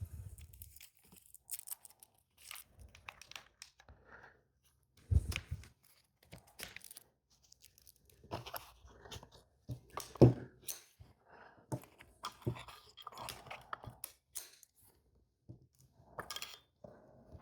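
Parts of a lightweight camping table being handled and fitted together: scattered clicks, knocks and rustling, with two louder thumps about five and ten seconds in.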